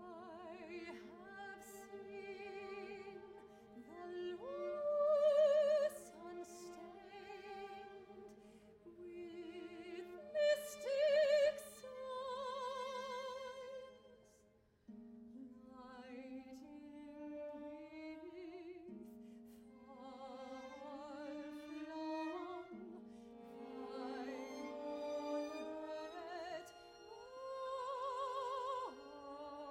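Soprano singing slow contemporary classical vocal lines with wide vibrato over held chords from a small string orchestra. Her loudest held notes come about five and eleven seconds in. After a brief fade near the middle, the strings move to a lower chord.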